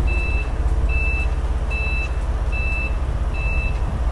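Forklift backup alarm beeping steadily as it reverses, a single high tone repeating about once every 0.8 s, five beeps in all, over the low rumble of a running engine.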